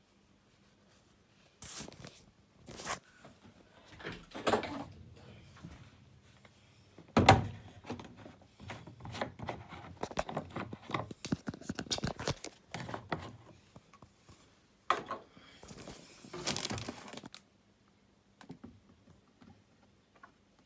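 Handling noises: irregular clicks, knocks and rustling, with one loud thump about seven seconds in and a busy run of clattering after it, then quiet near the end.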